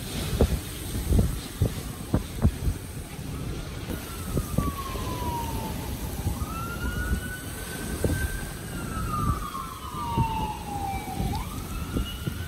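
Hurricane wind and rain buffeting the car, with gusts and many dull thumps. From about four seconds in, a siren wails over it in long sweeps, falling slowly in pitch, jumping back up, and falling again.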